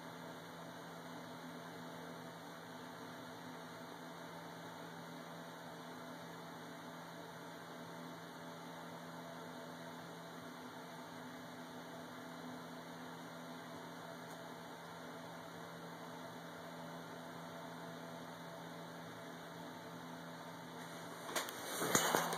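Steady low hum and hiss with a few faint steady tones under it. About a second before the end, a brief, louder burst of rustling, handling noise on the microphone.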